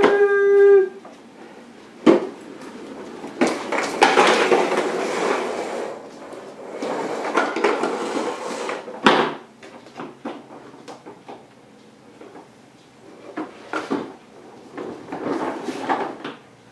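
Plastic toy push-wagon rolling and rattling over a hardwood floor in long stretches, with scattered knocks and clatters of plastic. A steady held tone, carried over from just before, cuts off about a second in.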